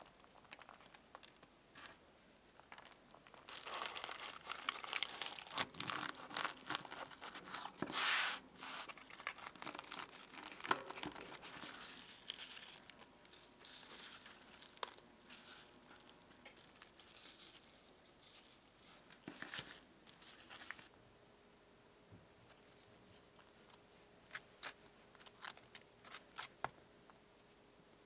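Crisp, flaky paratha crackling and crunching as it is cut and pulled apart, with many sharp crackles, loudest about four to twelve seconds in. Later come a few light taps of chopped fruit being set onto the bread.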